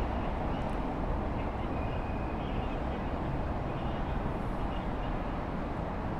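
Steady low urban background rumble, with a few faint, short high-pitched tones now and then.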